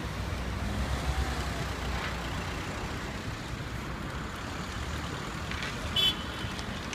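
Street traffic: the low rumble of passing cars, one of them towing a flatbed trailer, with a short high-pitched squeak about six seconds in.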